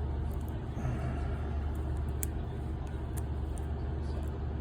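Steady low hum, with a few faint small clicks of a bobby pin being worked into a Lynx padlock's keyway against its pins.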